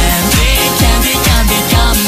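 Music track with a steady, deep bass-drum beat.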